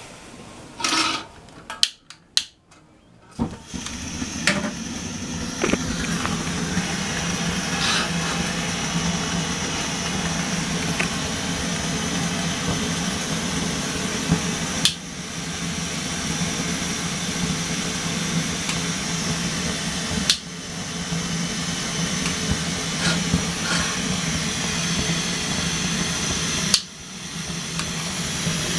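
Coleman Peak 1 Feather 400 white-gas stove lit after a few clicks, then its burner running with a steady rushing hiss and a low rumble, dipping briefly a few times. The freshly cleaned and rebuilt stove burns with a stable flame.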